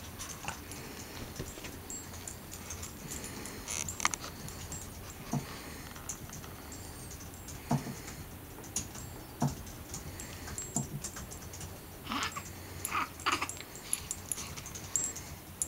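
Boston terrier moving about on a bed beside a baby: scattered small clicks and clinks from its studded collar and tags, with soft rustling of the bedding. A cluster of short sniffs comes about three-quarters of the way in as it noses at the baby's face.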